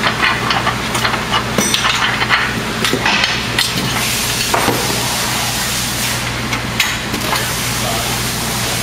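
Aluminium platform parts clinking and knocking as they are handled and fitted together, with irregular light metallic clicks that are denser in the first few seconds, over a steady low hum and background noise.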